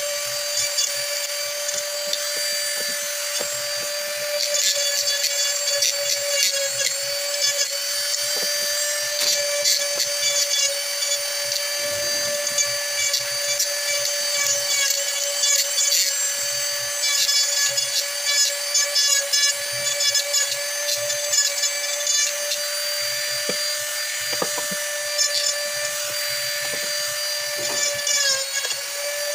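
Handheld electric power tool running at a steady whine while cutting into an ebony hardwood mug, with frequent rasping and ticking as the wood meets the cutter. The pitch sags briefly near the end as the tool is loaded.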